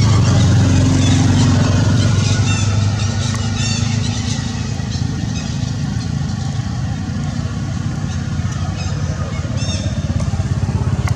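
An engine running steadily close by. Short high squeaks come every second or so over it.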